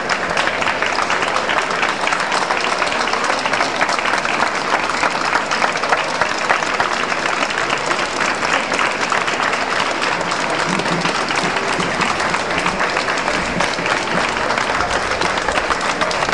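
Crowd of onlookers applauding, many hands clapping together in a steady, unbroken run.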